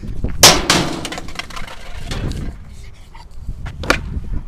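A skateboard slammed down onto asphalt: a loud crack about half a second in, followed by the clatter of the deck and wheels bouncing. A further sharp knock comes near the end, over a low wind rumble on the microphone.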